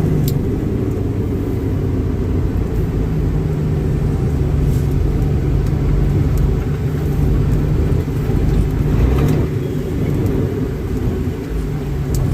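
Heavy truck's diesel engine running as a steady low drone, with a slight dip and rise in pitch about eight to nine seconds in.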